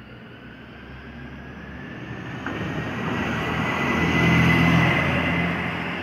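STCP 2100-series city bus driving past: its engine and tyre noise grow as it approaches, peak as it passes about four seconds in, then fade as it pulls away. A high whine sounds over the engine hum and is loudest as the bus goes by.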